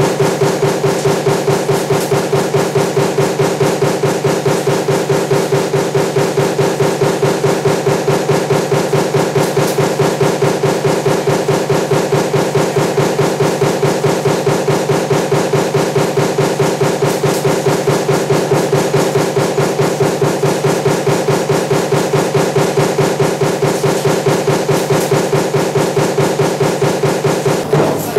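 Power press running a stamping die for table-fan motor parts, striking in a rapid, even rhythm over a steady machine hum.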